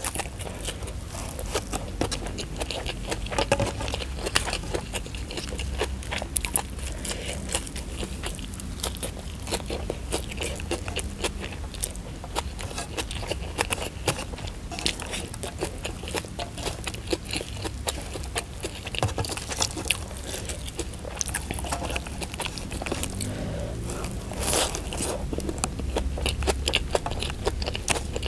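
Close-miked eating sounds: chewing and crunching of rice, omelette and raw sambal matah, with many small wet mouth clicks, and fingers scraping food together on the tray.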